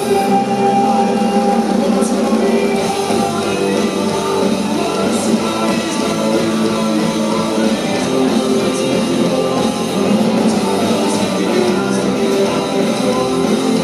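Live rock band playing electric guitars, bass guitar and drum kit, with a man singing over them, heard from the crowd in a concert hall.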